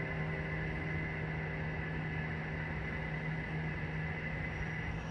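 Steady low hum over a wash of noise, with a faint high ringing tone that fades out near the end.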